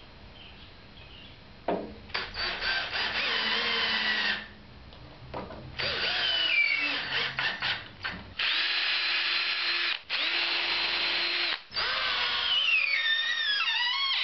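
Cordless drill running in a series of bursts, about five, as it bores pilot holes into small wooden supports. The motor's whine sags and recovers in pitch, most plainly near the end, as the bit loads up in the wood and the trigger is eased.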